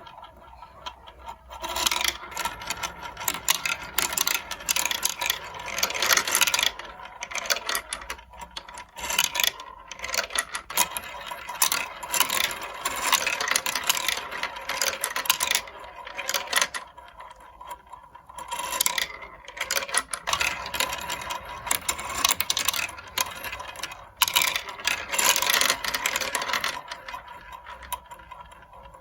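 Marbles rolling and clattering along a plastic building-block marble-run track: a continuous rattle of small clicks that swells and dips every few seconds.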